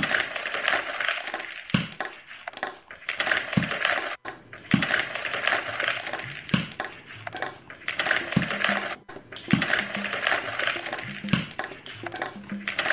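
Paper and tissue being crumpled and rustled close to the microphone, a continuous crinkly noise broken by brief pauses, with short low knocks every second or two.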